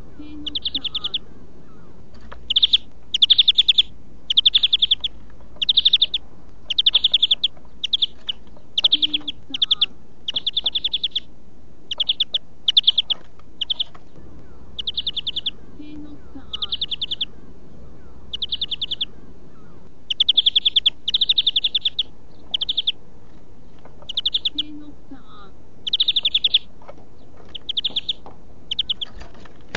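European greenfinch singing: a long series of short, rapid trills, one after another about every second, broken by a few brief pauses.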